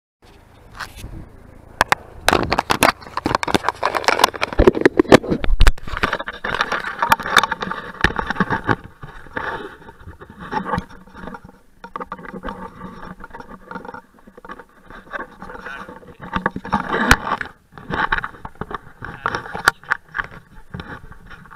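Close handling noise of an action camera being fixed in place: irregular scraping and rubbing of a hand, sleeve and clamp against the camera, with many sharp clicks and knocks, loudest in the first half.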